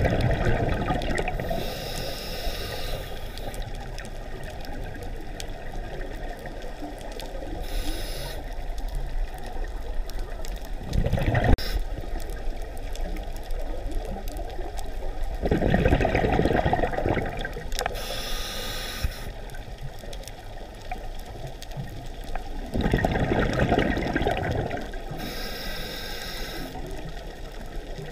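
Scuba diver breathing through a regulator underwater: a thin hiss on each inhale alternating with a louder rush of exhaled bubbles, about four slow breaths.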